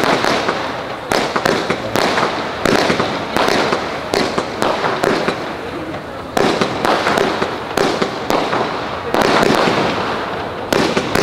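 Fireworks display: shells bursting in an irregular stream of sharp bangs, one to three a second, over continuous crackling.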